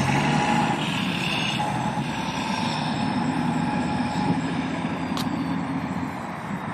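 Diesel truck engine running with a faint, high turbo whistle that slowly falls in pitch as the sound gradually fades. A short click comes about five seconds in.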